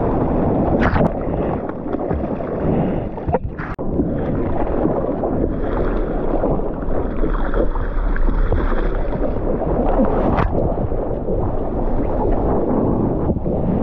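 Water rushing and wind buffeting a GoPro's waterproof housing as a surfboard rides through whitewater and skims across the water. A few sharp splashes hit the camera, and the sound briefly dips about three and a half seconds in.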